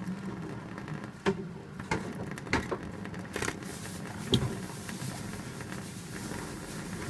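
Running water from a tap, with a few sharp splashes as a pet budgerigar bathes under the stream; the hiss of the water grows louder about halfway through.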